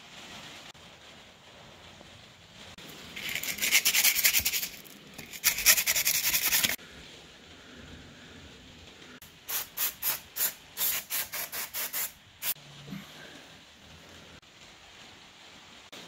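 Sandpaper on a block scrubbed over a glazed bicycle disc brake rotor to rough up its too-shiny braking surface: two spells of fast rubbing, then about ten slower separate strokes.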